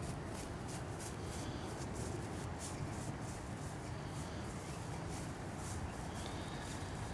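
Steady low outdoor background rumble with faint, irregular light ticks scattered through it.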